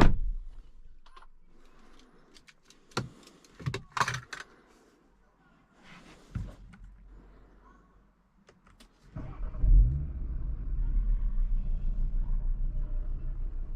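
A sharp thump, then a few clicks and handling noises. About nine seconds in, the Cupra Formentor VZ5's 2.5 TFSI five-cylinder engine starts, flares briefly and settles into a steady idle.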